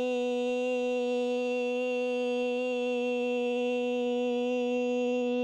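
A woman singing one long note on "B" (an "ee" vowel), held at a steady, level pitch: a vocal-power warm-up.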